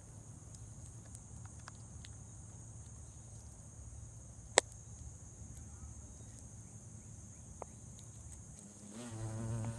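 Faint scattered clicks of a hornet crunching on a cicada, with one sharp click about halfway through, over a steady high-pitched insect chorus. A low buzz rises near the end.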